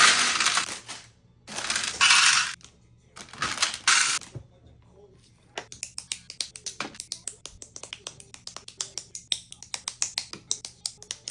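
Plastic Lego parts bag crinkling and tearing open in three rough bursts, then many small plastic Lego pieces clicking and clattering as they are poured out and sifted through, fast and irregular.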